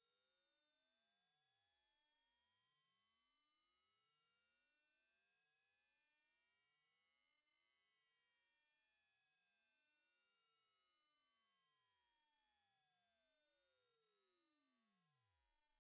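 Hearing-test sine tone: one very high-pitched pure tone at a steady level, climbing slowly in small steps. It is the top end of a frequency sweep, near the upper limit of human hearing.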